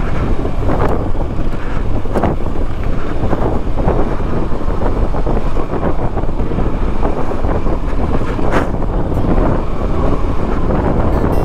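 Wind buffeting the camera microphone over a KTM Adventure motorcycle running on a dirt trail, a steady, loud noise with no clear engine note standing out.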